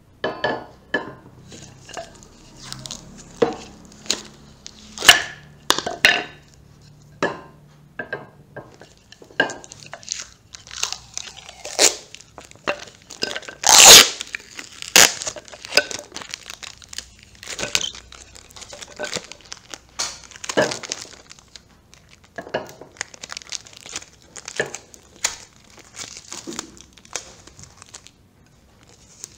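Plastic wrapping crinkling and tearing as it is stripped off wooden chair legs, with many sharp clacks of the wooden legs knocking together as they are handled and stacked. The loudest, longest tearing rasp comes about halfway through.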